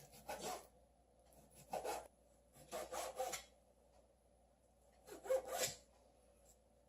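Kitchen knife slicing through bacon on a cutting board, in four short spells of cutting strokes with pauses between them.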